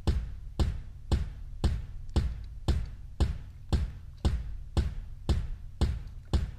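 Background music: a drum beat with little else, about two even beats a second over a steady low bass.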